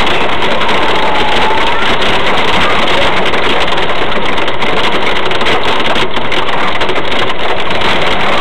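Hail and heavy rain drumming on the car's roof and windshield, heard from inside the cabin as a dense, steady clatter.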